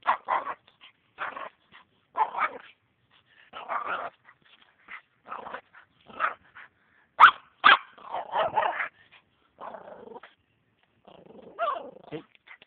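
Small dog barking and whining in short bursts about once a second, with two sharp, loud barks about seven seconds in. The dog is leashed and straining toward food just out of its reach.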